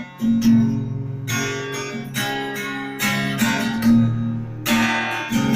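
Trembita Leoton L-01 acoustic guitar strummed in chords with a steady rhythm of strokes, with no singing.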